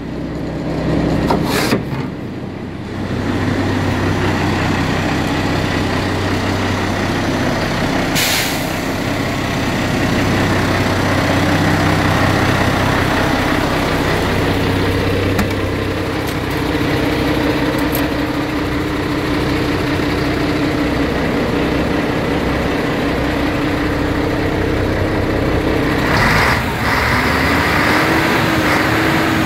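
MAN 19.403 tipper truck's diesel engine idling steadily, with a short hiss of released air about eight seconds in.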